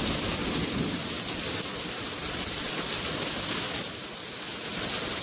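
Heavy rain falling steadily, a constant hiss of drops hitting the ground, easing slightly about four seconds in.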